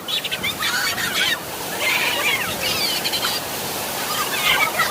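Steady rush of water, with short high-pitched calls over it in several clusters.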